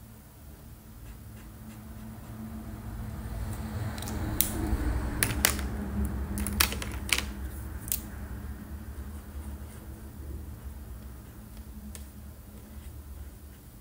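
Felt-tip markers being handled: a run of about six sharp clicks in the middle as caps are snapped off and on and pens knock together, over rustling handling noise and a low steady hum.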